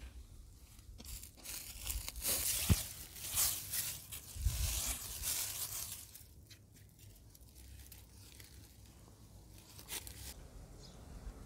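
Dry fallen leaves crunching and rustling as they are scraped and scooped with a flat piece of wood. The sound is in dense crackly bursts through the first half, then quieter, with one more short rustle near the end.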